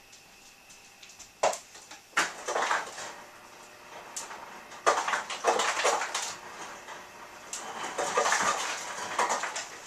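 A felt-tip marker rubbing back and forth on a white easel board in quick coloring strokes. It comes in several scratchy bursts with short pauses between them, with a couple of sharp taps of the tip.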